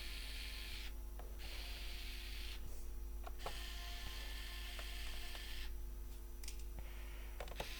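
Small electric screwdriver running in short bursts as it backs out laptop case screws, with a brief stop between screws about a second in, around three seconds and around six seconds.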